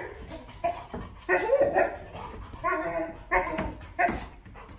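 Golden retriever vocalizing in a string of about six short, pitched whining-grumbling bursts, the Chewbacca-like noises of an excited dog greeting its owner.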